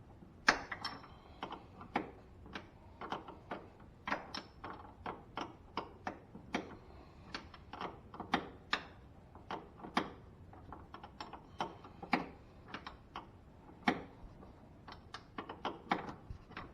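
Sharp, irregular metallic clicks and clinks, two or three a second: hand tools and tie rod end parts being handled.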